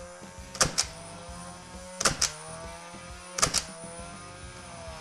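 Nerf Ultra Two motorized flywheel blaster firing three foam darts, about 1.4 s apart, each shot a sharp double click. Under the shots its spinning flywheel motors whine steadily; the pitch dips at each shot and climbs back, then drops away near the end as the motors wind down.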